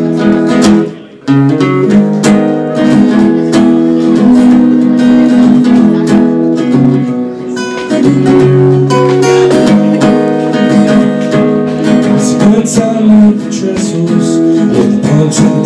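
Acoustic guitar strummed in chords during an instrumental break of a song; the strumming stops briefly about a second in, then picks up again and carries on steadily.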